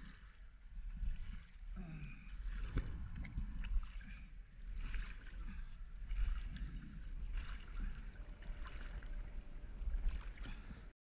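Water sloshing and lapping right at the microphone of an action camera held at the surface by a swimmer, with irregular splashes from hand strokes and a low rumble of water moving against the camera.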